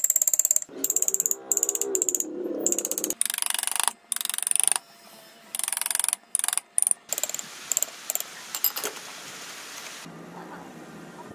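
A woodworking tool's mechanism clicking very rapidly, like a ratchet, in bursts that start and stop several times and thin out near the end.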